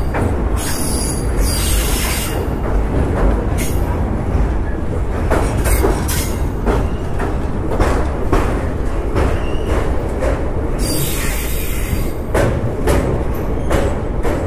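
Passenger train running on the line: a steady rumble from the coach, with wheels clicking over rail joints and passing rushes of hiss.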